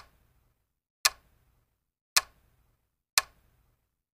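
Countdown-timer tick sound effect: four sharp clock ticks, about one a second.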